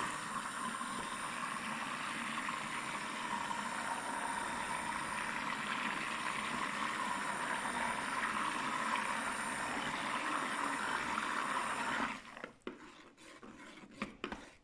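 Stick blender running steadily in liquid hot-process soap batter in a slow cooker crock, blending an emulsion that has not yet reached trace. It stops about twelve seconds in, followed by a few light knocks.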